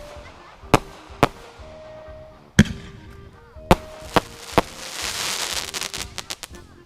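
Fireworks going off: six sharp bangs spread over the first five seconds, then a burst of rapid crackling pops lasting about a second and a half.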